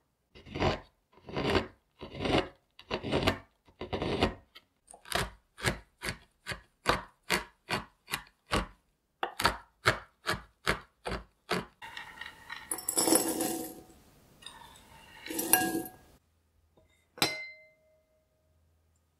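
Knife blade shaving a block of chocolate on a wooden cutting board, one scraping stroke after another, about one a second at first and quickening to about two a second. About 12 s in, the strokes give way to a few seconds of denser scraping as the shavings are pushed together, and near the end an enamel saucepan lid gives a single light clink.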